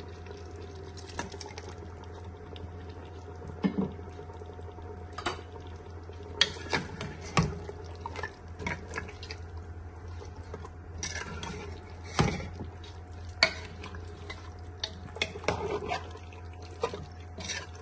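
A metal spoon stirring chunks of mutton in a thick, wet tomato-and-spice masala inside a pressure cooker: irregular scrapes and knocks of the spoon against the pot, with wet squelching of the mix. A steady low hum runs underneath.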